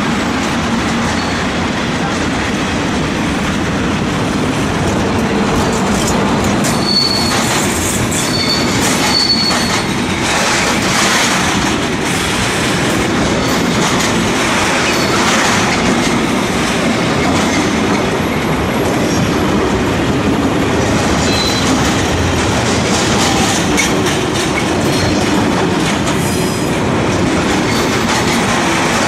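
A long freight train rolling past close by, its wagons rumbling and clattering over the rail joints, with short high wheel squeals now and then.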